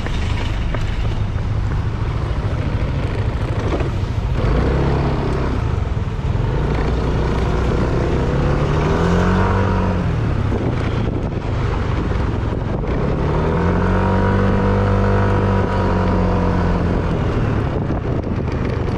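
Motorcycle engine under way with wind and road noise, its pitch rising and falling twice as it speeds up and eases off. There is a short surge about halfway through, then a longer climb that holds before falling away near the end.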